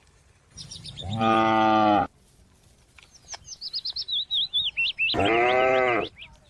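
A cow mooing twice, each call about a second long, with a small bird chirping rapidly between the moos.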